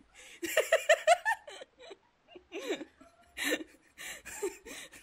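People laughing: a quick burst of rapid giggles about half a second in, followed by several shorter breathy laughs.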